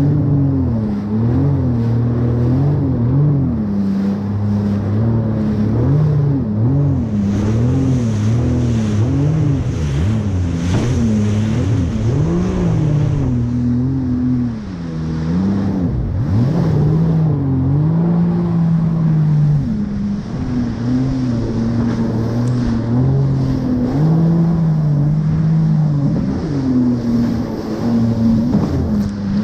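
Yamaha VX Deluxe personal watercraft engine running hard through the surf, its pitch rising and falling repeatedly as the throttle and the load on the hull change over the waves, dropping off briefly about halfway and climbing again. Water rushes and splashes under the hull.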